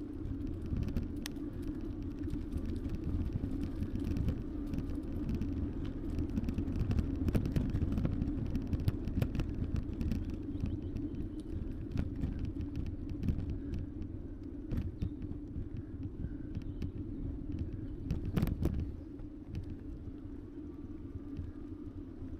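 Wind rumbling on an action camera's microphone while riding an e-bike, over a steady hum, with scattered light clicks and rattles and one louder knock near the end.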